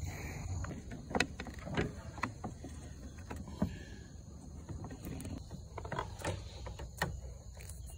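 Black solar PV cables being worked through a rubber grommet in a drilled hole: rubbing and handling noise with a few scattered sharp knocks and clicks.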